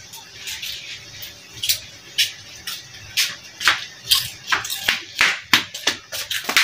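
Peanut crackers (peyek kacang) deep-frying in a wok of hot oil: irregular sharp crackles and pops, more frequent from about three seconds in.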